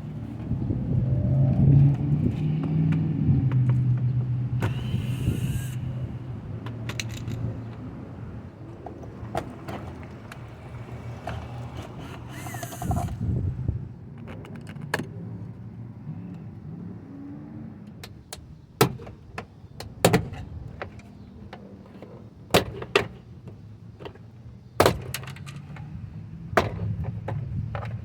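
A Mercury Milan's interior door panel being pried off. Scraping and handling are followed by a string of sharp plastic snaps as the retaining clips pop loose, several of them loud, in the second half. A low steady hum runs under the first several seconds.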